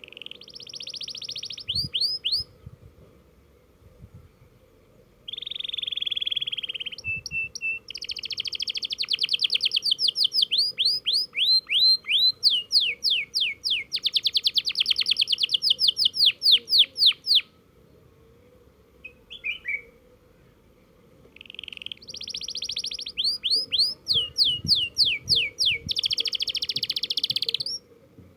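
Domestic canary singing three long phrases of fast trills and rapid runs of sweeping notes, with pauses of a few seconds between; a canary still learning its rolling song.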